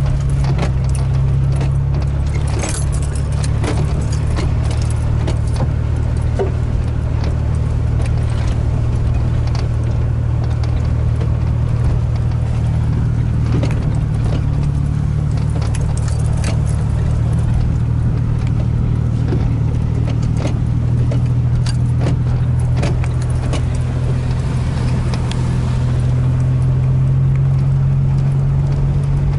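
Vehicle engine running at a steady low drone, heard from inside the cab while driving on a rough, rutted dirt road, with frequent small clicks and rattles from the cab over the bumps.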